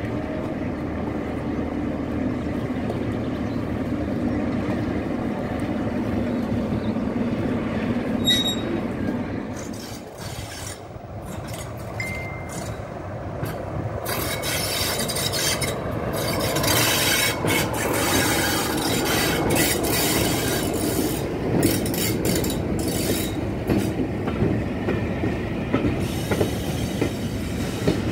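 A diesel locomotive engine running steadily as it moves slowly along the track. It is followed by a diesel-hauled passenger train passing close by: the engine goes past, then the coaches' wheels clatter over the rail joints.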